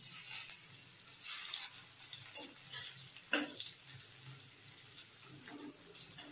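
Marinated seer fish pieces sizzling in a shallow layer of oil on a non-stick tawa, with a few sharp scrapes and taps of a steel slotted spatula as the pieces are turned over. The loudest tap comes a little after the middle.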